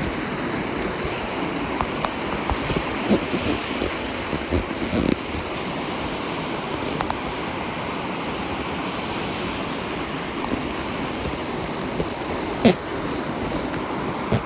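Steady rush of surf breaking on a sandy beach, with a few scattered knocks and one sharp knock near the end.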